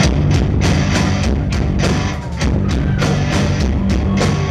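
Live rock band playing loud: electric guitars and bass over a full drum kit keeping a driving beat, with the drums coming in right at the start after a held chord.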